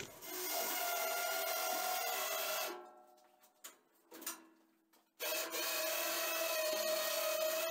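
Cheap electric winch on a homemade mini-tractor loader winding in its cable to lift the empty bucket, running with a steady whine. It stops for about two and a half seconds in the middle, with a couple of faint clicks, then runs again.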